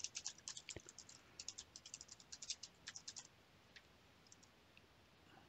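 Faint typing on a computer keyboard: a quick run of keystrokes lasting about three seconds, then a few lone clicks.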